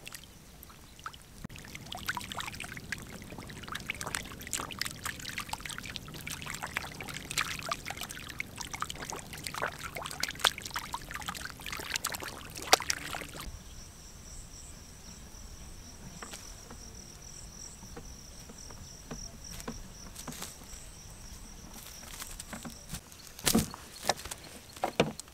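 Fish thrashing and splashing in shallow muddy ditch water, a dense run of irregular splashes for about the first half. It then gives way to a steady high trill of insects, and near the end a few heavy footsteps land on dry field soil.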